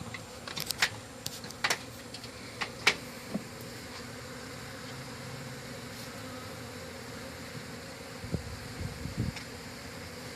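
Honey bee colony buzzing steadily. A few sharp clicks and knocks come in the first few seconds, and some low thumps near the end.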